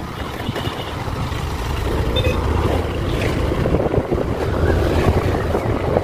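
A steady rushing rumble, with wind buffeting the microphone, getting a little louder about two seconds in.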